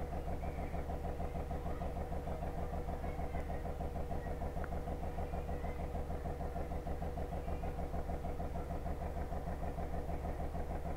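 An engine running steadily at idle: a low, even hum with a fine rapid pulse that does not change.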